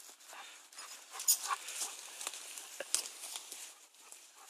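A Bouvier des Flandres dog moving close by, with irregular scuffling and rustling over dry straw and a few sharp clicks, the loudest about a second and a quarter in and another near three seconds.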